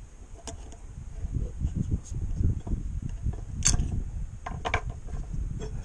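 Parts of a disassembled vacuum pump being handled: irregular clicks and light clatter of small metal parts, with one sharper click a little past the middle.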